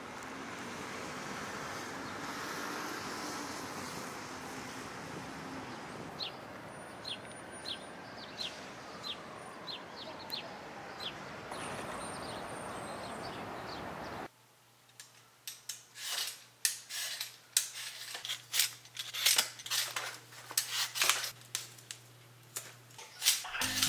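Steady outdoor city ambience with distant traffic, and a bird calling in short chirps about twice a second from about 7 to 11 seconds in. After an abrupt cut about 14 seconds in, crisp rustles and clicks follow as hands handle sweet potatoes in their mesh and paper bag.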